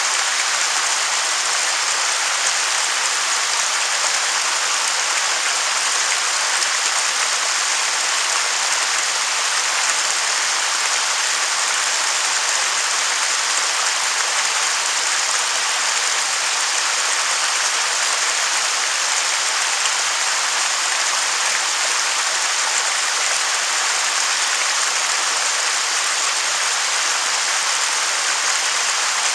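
Waterfall rushing steadily, an even, unbroken hiss of falling water with little low rumble.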